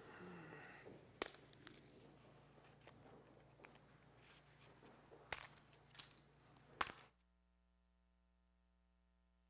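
Near silence: faint church room tone with soft rustling and a few sharp knocks as people settle into their seats. About seven seconds in the sound cuts off abruptly, leaving only a very faint steady hum.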